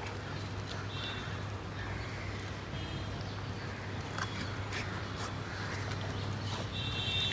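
Golden retrievers gnawing and tearing at coconut husk and palm frond fibres, with light scattered crunches. Short bird calls sound several times behind them, over a steady low hum.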